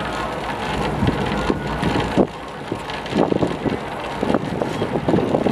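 Inside a moving cable car gondola: a steady rumble and wind noise, with a few short knocks from the cabin about two, three, four and five seconds in.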